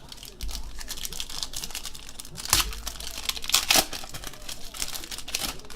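Trading cards being handled and flipped through: rapid papery rustling and clicking, with two louder flicks about two and a half and nearly four seconds in.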